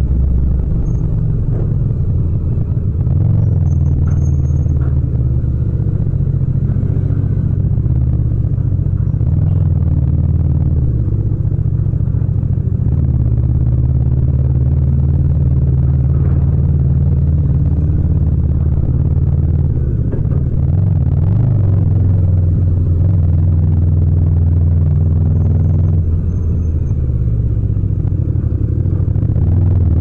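Yamaha MT-07's 689 cc parallel-twin engine running as the bike rolls slowly through traffic on light throttle, a steady deep exhaust note whose pitch shifts slightly a few times with small throttle changes.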